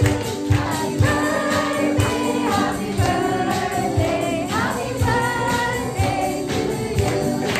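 A group singing a worship song together to acoustic guitar, with a jingling tambourine and hand claps on the beat about twice a second.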